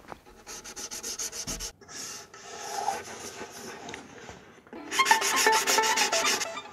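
Hands rubbing and sanding the bare, unvarnished wooden body of a violin in quick back-and-forth strokes, a short run near the start and a louder run about five seconds in.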